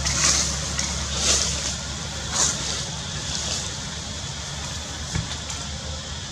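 Steady low outdoor rumble with a few soft rustles about one, two and two and a half seconds in.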